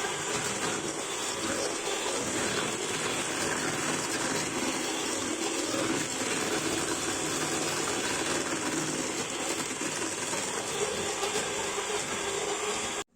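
Electric kitchen appliance motor, such as a hand mixer or grinder, running steadily with a whirring, noisy sound, then cutting off abruptly near the end.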